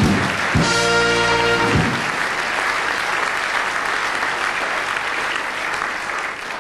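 Audience applauding, with a short brass chord from the band, a carnival Tusch, lasting about a second near the start. The applause carries on steadily and dies away near the end.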